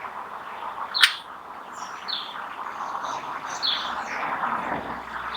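Small birds chirping: short high chirps about once a second, over a steady background hiss.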